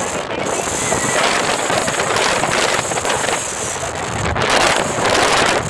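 Wind buffeting a phone's microphone in an open-top convertible on the move, over the car's road noise, with louder gusts near the end.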